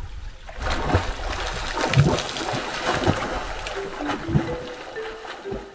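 Water splashing and sloshing from a person's swimming strokes in the sea, in irregular surges. Short mallet-like music notes come in near the end.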